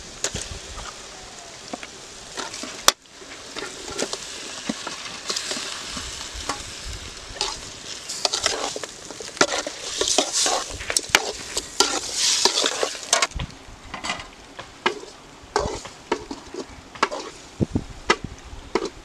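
Raw broiler chicken pieces sizzling as they fry in hot oil and onion-tomato masala in a metal pan, with many sharp clicks and scrapes as they are stirred in. The sizzle is loudest around the middle.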